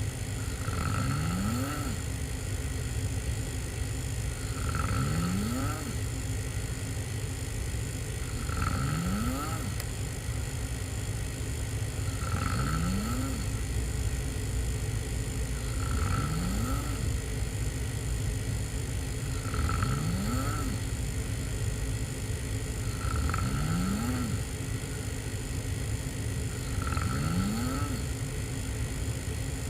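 A person snoring hard, mouth open, lying on their back: about eight snores, one roughly every four seconds, each rising in pitch, over a steady low rumble.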